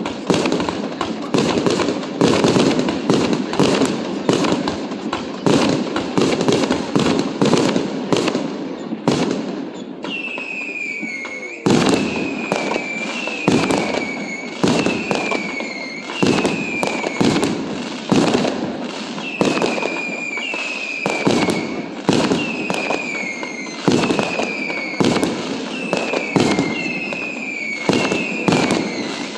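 Fireworks display: a rapid, dense string of bangs and crackling bursts, then from about ten seconds in a run of whistling fireworks, each a short whistle falling slightly in pitch followed by a bang, about one a second.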